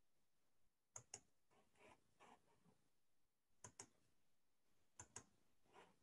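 Faint computer mouse clicks in quick pairs, three double-clicks a second or more apart, over near silence.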